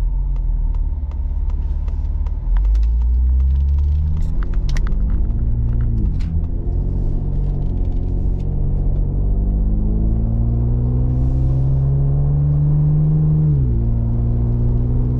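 Ford Explorer ST's twin-turbo V6 with a Thermal 3-inch exhaust, heard from inside the cabin while accelerating. The engine note rises in pitch, drops at an upshift about six seconds in, rises again and drops at another upshift near the end. Light, regular ticks sound over the first few seconds.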